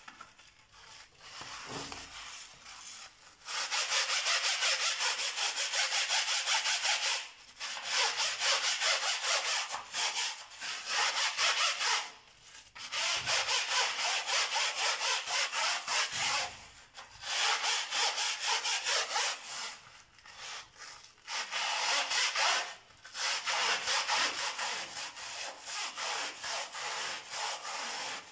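A stiff plastic-bristled scrub brush scrubbing a metal mesh range hood grease filter in rapid back-and-forth strokes. The strokes come in runs of a few seconds, broken by short pauses.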